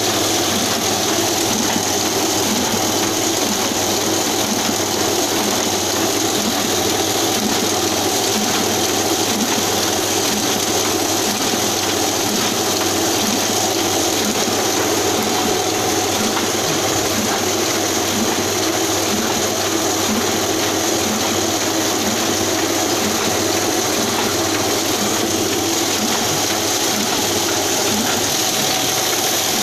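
Ryobi small offset printing press running steadily, with a continuous even mechanical clatter from its rollers and paper-feed mechanism. It is running smoothly while printing.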